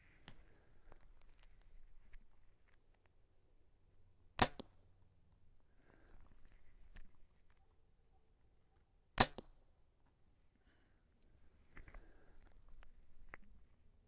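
A compound bow is shot twice, about five seconds apart, each shot a single sharp crack as a trigger release lets the string go. Faint rustles and clicks of clipping in and drawing come between the shots, over a steady high insect buzz.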